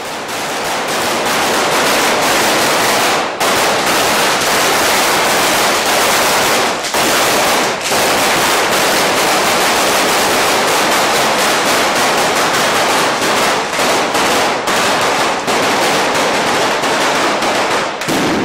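Firecrackers going off in dense, rapid succession: a near-unbroken crackle of bangs, with a few short breaks.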